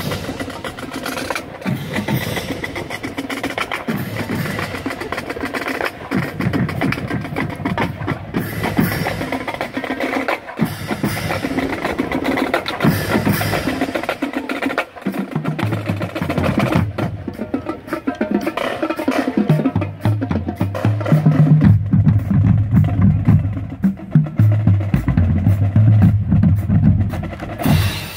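Marching band drum line playing a marching cadence on snare and bass drums, with deeper bass-drum notes louder in the second half.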